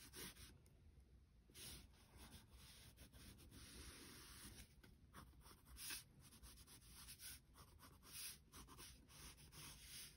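Wax crayon rubbing across paper in a series of faint, irregular strokes.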